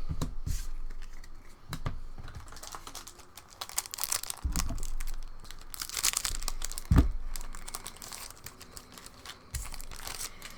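A trading-card booster pack wrapper being torn open and crinkled by hand, in irregular crackling bursts, with a couple of dull thumps in the middle.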